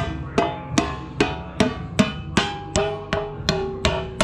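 A wooden handle hammering the lid down onto a metal gallon paint can: a steady run of about ten sharp knocks, roughly two and a half a second, each with a short metallic ring. The can is being sealed so the freshly mixed paint can be shaken by hand.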